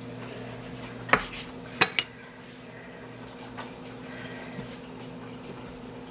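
A kitchen utensil knocking against a hard countertop: one sharp knock about a second in, then two quick knocks close together near two seconds, over a low steady hum.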